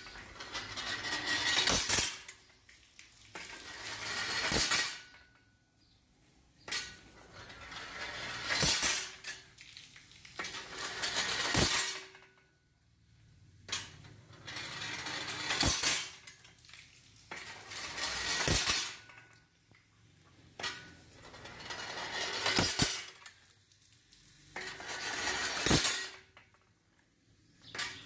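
Homemade steam-powered water pump cycling: a hiss swells for two or three seconds and ends each time in a sharp metallic clack, then falls away, repeating about ten times.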